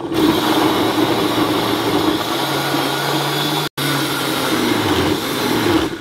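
Cuisinart blender running at full speed, pureeing chunks of peeled cashew apple with a little water. The noise is loud and dense, with a low motor hum. It cuts out for an instant partway through, then winds down and stops at the end.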